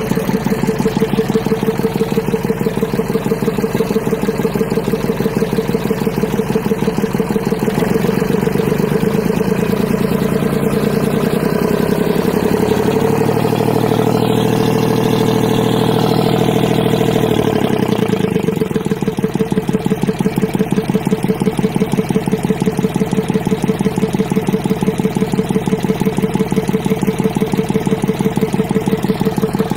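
Yanmar three-cylinder marine diesel engine idling with an even pulsing beat. About twelve seconds in it is revved up for a few seconds, then settles back to idle.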